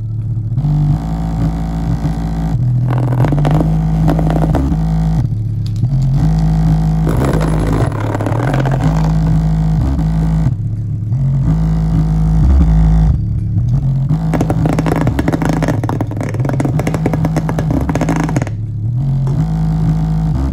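Aiwa 5.25-inch woofer in a small cardboard box playing loud bass notes that step between a few low pitches in a repeating pattern. The cardboard box buzzes and rattles along with the bass, and the rattle drops out briefly several times.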